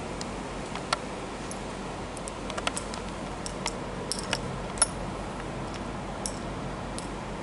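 Steady room hiss with scattered light clicks and taps at uneven intervals, the sharpest about five seconds in.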